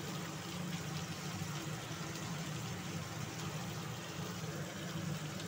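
Tomatoes, onions and spices frying in oil in an aluminium kadai: a steady, even sizzle over a constant low hum.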